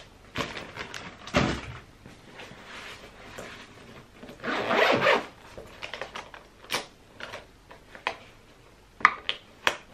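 Zipper on a fabric cosmetics bag being pulled open, a rasp lasting about a second near the middle. Around it are fabric rustling and, toward the end, several sharp clicks and knocks of makeup items being handled.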